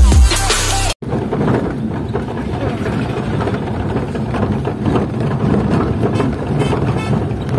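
A short end of electronic intro music, then a vehicle's engine and road noise heard from inside the cabin while driving on a rough dirt road, with many small knocks and rattles.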